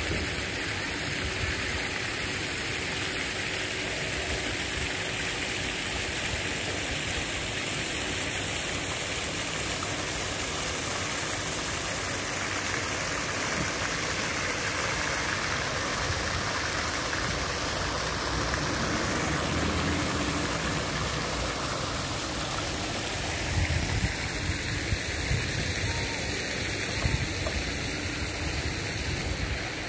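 A steady rushing noise with uneven low rumbles, and a few short knocks about three-quarters of the way in.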